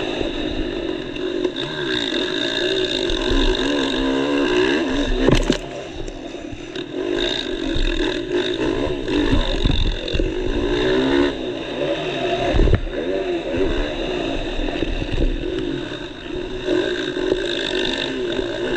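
Motocross bike engine heard from the rider's helmet camera, revving up and down through the gears over ruts and jumps. Two sharp thumps stand out, about five seconds in and near thirteen seconds.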